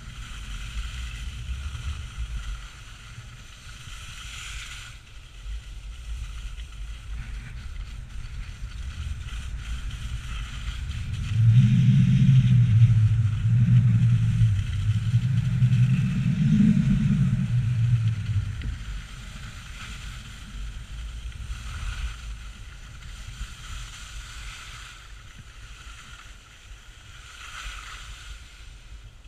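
Wind buffeting the microphone of a camera held out on a selfie stick during a downhill ski run, with the skis sliding and scraping over packed snow. The wind rumble grows much louder for several seconds about midway, then eases as the skier slows near the end.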